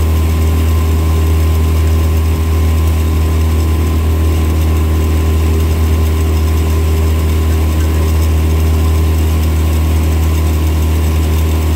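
Outboard motor of a coaching launch running steadily at an even low pitch.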